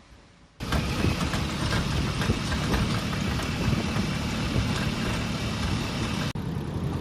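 Steady motor-vehicle engine and road noise, with a heavy low rumble, cutting in abruptly about half a second in.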